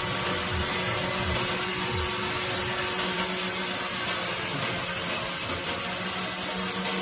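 Woodworking power tool running steadily, with a continuous high hiss and a low hum.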